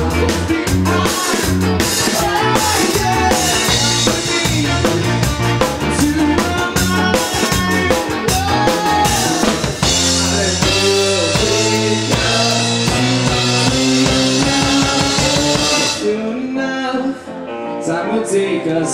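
Rock band playing: drum kit, electric guitar and bass, with some singing. The full band cuts out about three seconds before the end, leaving a few ringing notes.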